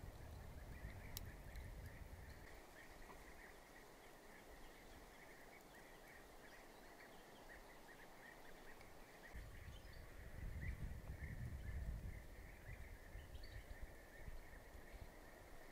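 Faint outdoor ambience: continuous high chirping of birds, with a low rumble in the first couple of seconds and again about two-thirds of the way through.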